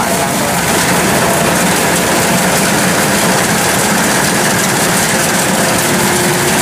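Kubota DC-108X combine harvester's diesel engine and machinery running steadily at working speed as it cuts rice.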